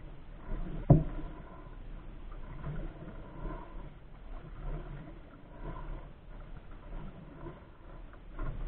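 Double-bladed paddle strokes swishing through the water beside a solo pack canoe, one roughly every second, with a single sharp knock about a second in.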